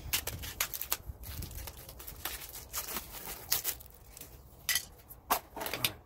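New brake pads and their plastic packaging being handled: a run of irregular short clicks, clinks and crinkles.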